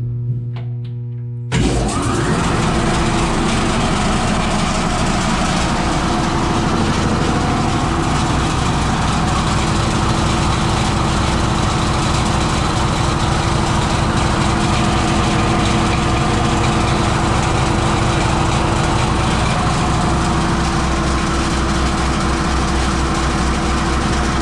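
Ship's electric air compressor starting abruptly about a second and a half in, then running loudly and steadily as it charges the ship's compressed-air system.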